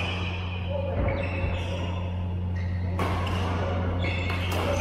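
Badminton rackets striking the shuttlecock during a doubles rally: sharp hits at about one second, three seconds and twice near the end, over a steady low hum.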